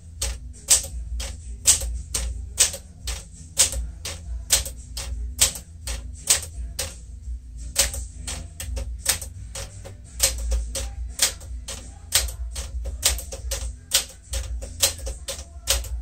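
A 1959 Smith-Corona Sterling manual typewriter being typed on key by key, each typebar striking the platen with a sharp clack, a few strikes a second with a short pause about seven seconds in. The symbol and punctuation keys are being typed one after another for a type test.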